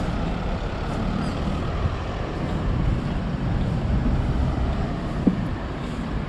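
Street traffic: a steady rumble of passing road vehicles, with one brief short sound about five seconds in.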